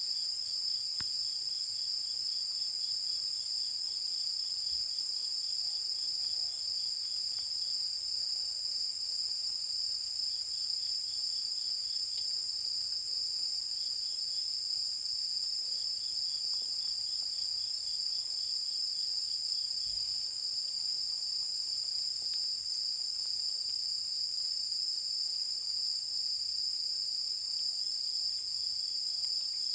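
Night chorus of singing insects: a steady, high-pitched trilling, with a lower-pitched insect chirping in rapid pulsed series that start and stop every few seconds.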